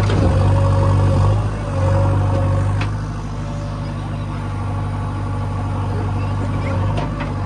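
JCB 3DX backhoe loader's diesel engine running under working load, easing off about a second and a half in and settling to a lower, steady note, with a couple of short metallic clacks from the digging gear.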